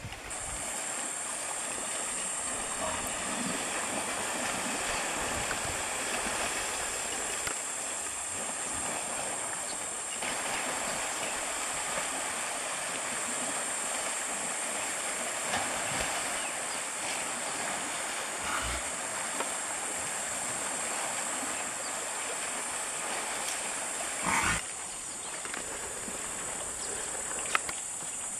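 Outdoor ambience at a waterhole with a herd of Cape buffalo: a steady high-pitched drone over a hiss, with scattered faint animal sounds. A brief louder burst comes near the end, and the high drone stops after it.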